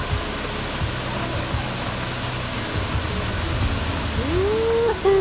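Waterfall rushing with a steady roar. Near the end a single pitched call rises and then falls away.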